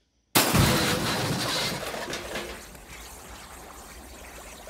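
Race car crash sound effect: a sudden loud burst of noise that fades over about two seconds into a steady hiss.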